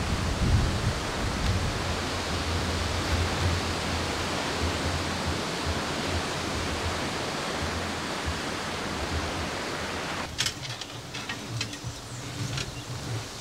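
Wind buffeting the microphone: a steady rushing noise with a low rumble. About ten seconds in it gives way to quieter sound with a few scattered clicks and knocks.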